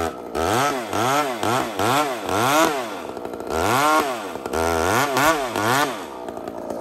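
Large chainsaw with a 4-foot bar cutting a bore into an 8x8 timber. The throttle is pumped over and over, so the engine revs up and falls back about twice a second, with one longer rev in the middle, then settles to a lower, steadier speed near the end.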